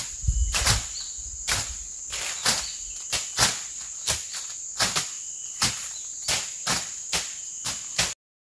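Forest insects chirring steadily in high tones, with a string of sharp thuds about one to two a second over it. The sound cuts off abruptly near the end.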